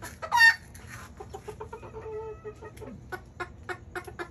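Miniature chickens clucking in short repeated notes, with one loud cry about half a second in and a drawn-out call about two seconds in.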